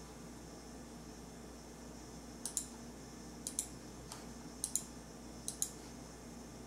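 Computer mouse clicking: four quick pairs of clicks about a second apart, with one fainter single click between the second and third pair.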